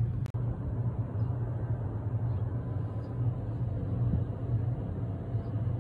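Wind buffeting the phone's microphone outdoors: a steady, low, rumbling noise.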